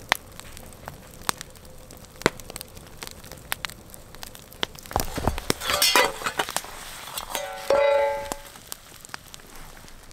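Wood campfire crackling with scattered sharp pops. Around the middle a metal pot lid clinks and scrapes as it is lifted, with a short metallic squeal about a second later.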